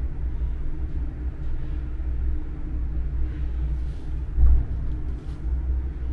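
Low, steady rumble of the Schlossberg-Bahn funicular car running along its track, heard from inside the cabin, with one louder bump about four and a half seconds in.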